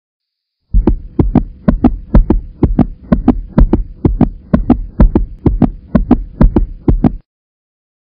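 Heartbeat-style rhythm of paired low thumps, about two pairs a second, over a faint steady hum. It starts just under a second in and stops suddenly a little after seven seconds.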